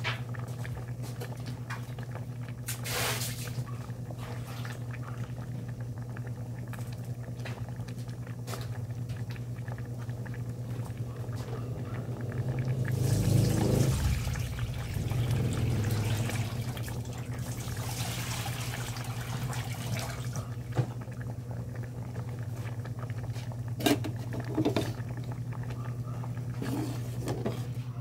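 Pot of mung bean soup simmering on a stove: liquid bubbling over a steady low hum, swelling louder for a few seconds around the middle. A few sharp clicks near the end.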